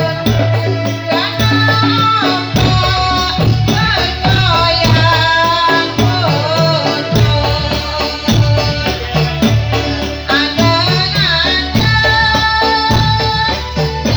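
Dolalak dance music: sung melody over drums keeping a steady beat.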